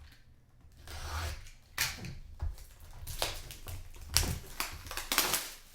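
Irregular clicks, taps and crinkles from a trading-card box and its packaging being handled at a table.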